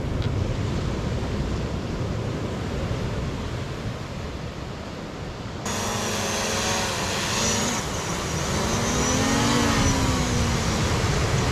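Steady wind and surf noise. About halfway through the sound changes and a droning motor hum joins, its pitch wavering, then rising and falling near the end.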